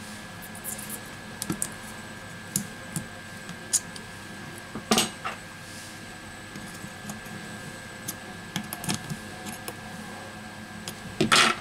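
Irregular small clicks, taps and scrapes of metal tools prying at a phone's glued-in battery and frame, with two louder knocks, about five seconds in and near the end. A faint steady high whine runs underneath.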